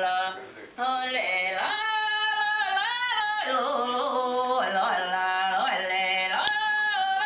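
Background music: a solo voice singing long held notes that slide from one pitch to the next, with a short pause between phrases about half a second in. A single faint click comes near the end.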